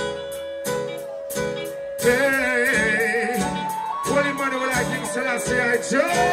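Live band music: held chords over a steady beat, then a singing voice with a wavering vibrato comes in over the band about two seconds in.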